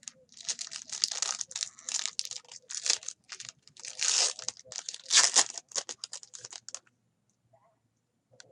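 A trading-card pack's wrapper being torn open and crinkled in the hands, a run of quick crackling rustles that stops about seven seconds in.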